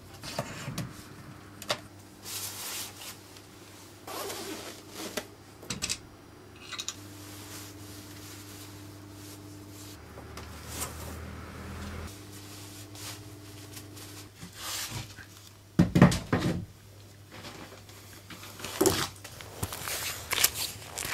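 Scattered knocks and handling clatter over a low steady hum, with the loudest knocks about sixteen seconds in. A laptop lid snaps shut right at the start, and near the end boots crunch on a gravel track.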